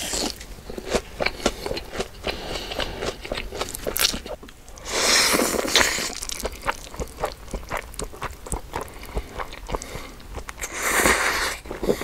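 Close-miked eating: a run of crunchy bites and chewing clicks, with two longer, louder noisy bursts about five and eleven seconds in.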